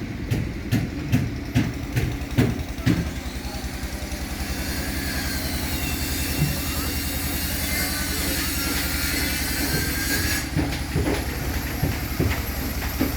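Workshop noise under a steady low machine hum. About seven sharp knocks fall in the first three seconds, then an air hiss runs for about six seconds and cuts off suddenly, as a spray gun paints the speaker cabinets.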